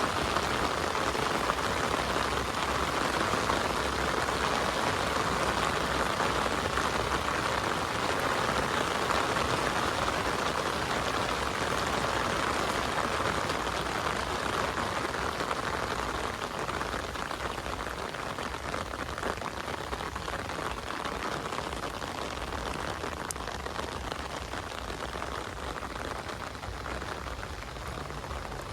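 Heavy rain falling, a dense steady hiss that eases slightly about halfway through.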